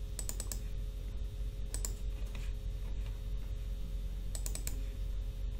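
Sharp clicks from a computer's mouse and keys while editing: a quick cluster about a third of a second in, a pair near two seconds, and another cluster about four and a half seconds in. A steady low electrical hum runs underneath.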